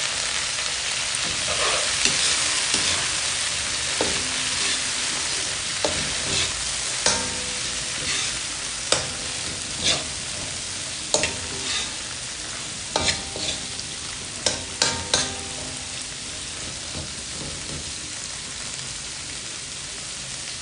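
Kangkong stems sizzling in hot oil in a metal wok while a metal spatula stirs them, scraping and knocking against the pan every second or two, some knocks leaving a short ring. The stirring stops about three-quarters of the way in and the sizzle eases a little.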